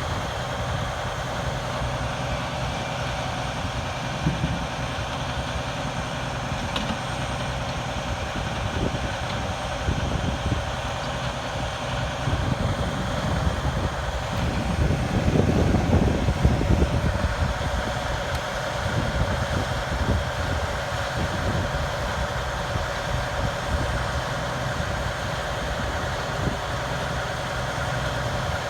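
Fire ladder truck's diesel engine idling steadily, growing louder for a couple of seconds about halfway through.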